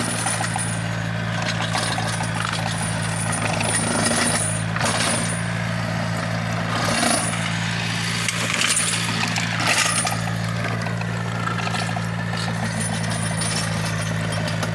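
Yanmar 1155 tractor's diesel engine running steadily under load while it drags an earth-working implement through stony soil, with scattered knocks and clanks from the implement and stones.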